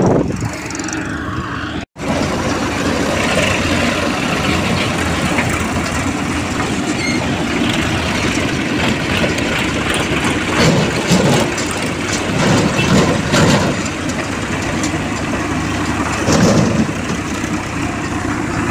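Diesel farm tractor engines running with a backhoe loader working close by, and a few knocks and thumps as earth is loaded into a tractor trolley. The sound cuts out for a moment about two seconds in.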